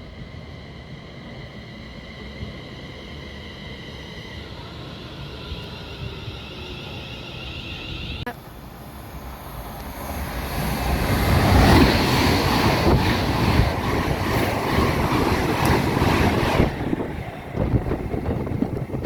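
A train coming through the station close by: a high, steady ringing tone at first, then a loud rushing rumble that builds from about ten seconds in and stops fairly sharply near the end.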